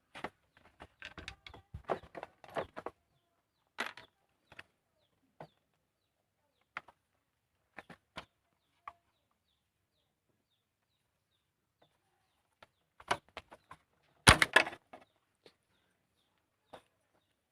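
Scattered small clicks and knocks of hands working on motorcycle handlebar switch wiring and plastic parts, with a louder burst of clatter about fourteen seconds in.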